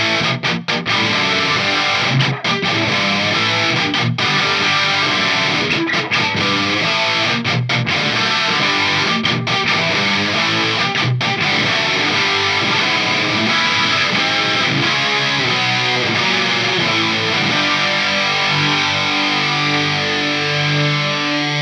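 Distorted electric guitar played through a Line 6 Helix preset: a boosted Line 6 2204 Mod amp model into Marshall 1982 cab IRs, thickened by two opposite pitch shifts on slightly different delays, with a little room reverb. Chords chopped off by short stops every second or two, then held notes toward the end.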